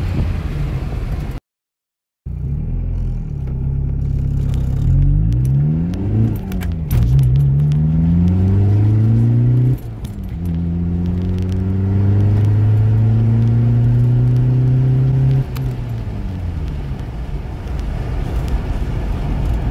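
Audi A3 1.9 TDI four-cylinder turbodiesel heard from inside the cabin while accelerating hard. The engine note climbs and dips sharply at two gear changes, with light cabin rattles, then falls away as the throttle is lifted near the end. A brief gap of silence from an edit comes about a second and a half in.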